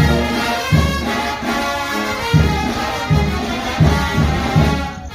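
Mexican brass banda playing live: trumpets and trombones carry the melody over heavy, repeated low bass notes, easing off briefly near the end.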